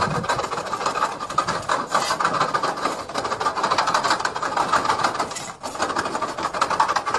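Aviation snips shearing quickly along a corrugated metal roofing sheet: a dense run of rapid clicking cuts, with a brief pause about five and a half seconds in.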